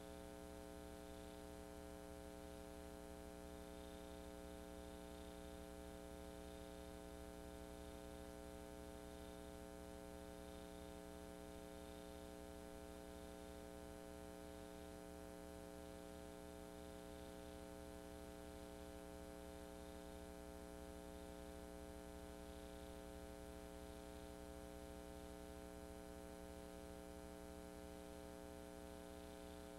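Near silence: a faint, steady electrical hum with hiss and nothing else.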